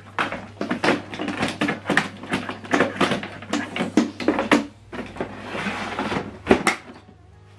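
Plastic clicks and knocks from handling an Epson XP-5200 inkjet printer as its paper cassette is worked back in and the printer is turned around on the table. A brief scraping comes about five seconds in, followed by a sharp knock.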